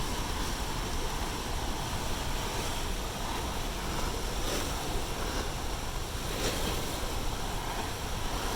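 Water released from a reservoir pouring out in a steady, rushing torrent, with a strong low rumble under the hiss of the spray.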